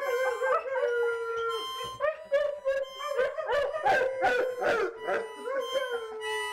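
A giant pit bull howling along to a child's harmonica: long howls that slowly fall in pitch, over short wavering harmonica notes.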